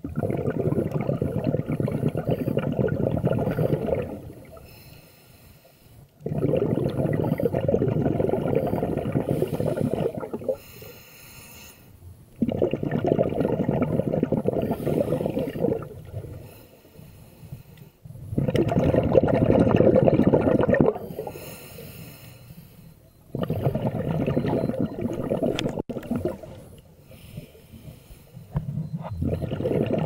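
Scuba diver breathing through a regulator underwater: a long burst of exhaled bubbles about every six seconds, with quieter inhalations between them.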